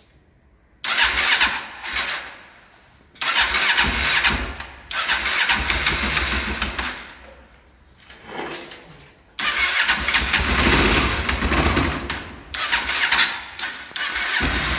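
Honda CBF500 parallel-twin motorcycle engine being cranked cold after winter storage, with the choke on and a little throttle: several start attempts, each a sudden burst of a second to a few seconds that fades away before the next. It does not settle into a steady idle.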